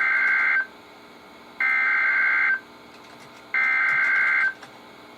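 EAS SAME header data bursts from a NOAA Weather Radio broadcast: three bursts of warbling two-tone digital data, each about a second long, with about a second of radio hiss between them. This is the coded header that opens a new emergency alert.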